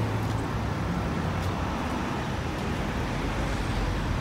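Steady road traffic noise: cars and buses driving past along the bridge roadway, a continuous low rumble of engines and tyres.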